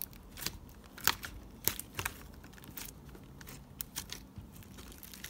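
Slime being pressed and worked by hand on a tabletop, giving a string of irregular sharp sticky clicks and crackles.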